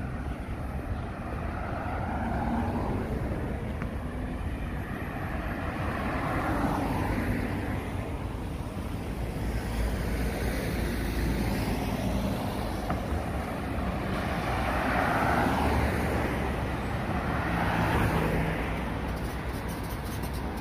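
Car traffic on a city street: about five vehicles pass one after another, each swelling and fading as it goes by, over a steady low traffic rumble.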